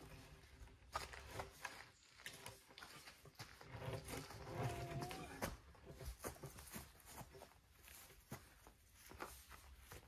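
Faint scuffing, footsteps and small knocks as a heavy peeled log post is pushed upright into its dug hole. A brief voice sound comes about halfway through.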